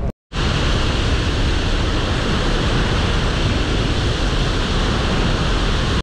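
Steady rushing roar of a large waterfall. It starts a moment in, after a brief silence.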